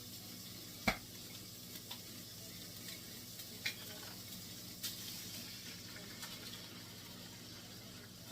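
Spaghetti sauce being stirred into drained, browned ground beef in a hot pan: a faint sizzle, with a spoon knocking against the pan, sharpest once about a second in and lighter clicks a few seconds later.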